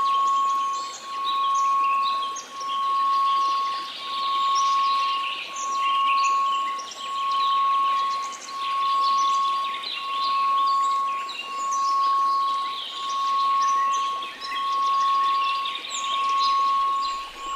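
A steady 1098 Hz tone over a faint white-noise hiss, swelling and fading about every second and a half. Busy birdsong chirps over it.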